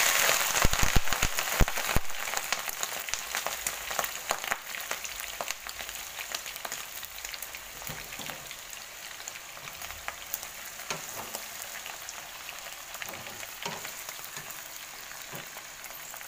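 Shell-on prawns tipped into a pan of hot oil, sizzling and popping hard. The crackle is loudest as they go in, with a few dull thumps in the first two seconds, and slowly dies down as they fry.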